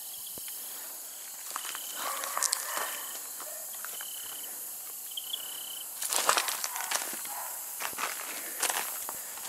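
Footsteps crunching and scuffing on the loose rocks of a dry creek bed, starting about six seconds in. Before that, and throughout, there is a steady high hiss with four or five short, high, flat chirps.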